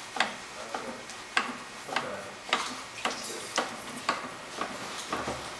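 Custom-made wooden kick wheel spinning, with an evenly spaced tick about twice a second as it turns.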